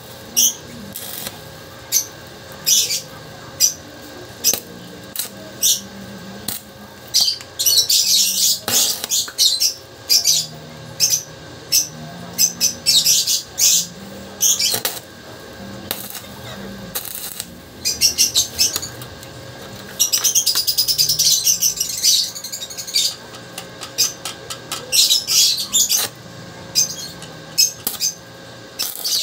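Stick welding arc crackling and sputtering as the electrode burns against steel, in many short bursts with a couple of longer stretches of steady crackle about a third of the way in and again past the middle.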